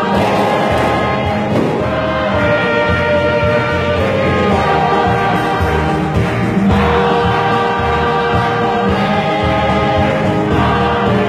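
Mixed choir of women's and men's voices singing sustained held notes, accompanied by an electronic keyboard with a steady bass line.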